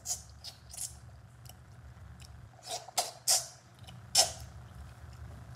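Mouth sounds of eating braised oxtail by hand: wet smacks and sucking at the meat on the bone, a handful of short bursts, the loudest about three and four seconds in.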